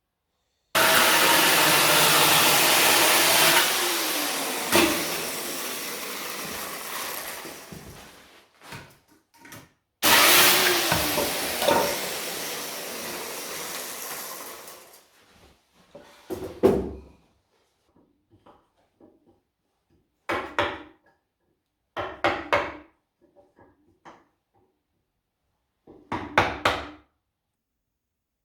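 Chainsaw cutting into wood: two long cuts that each start abruptly and trail off, then several short bursts of cutting.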